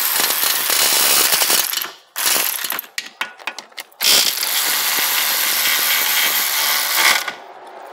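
A cordless power driver runs in the bolts on a 6T40 transmission's side cover. It runs for about two seconds, then there are a few light clicks, then it runs again for about three seconds before stopping.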